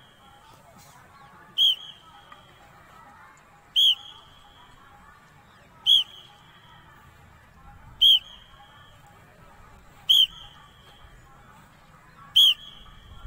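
Trainer's whistle blown in six short, sharp blasts, evenly spaced about every two seconds, keeping the count for a group doing sit-ups in unison.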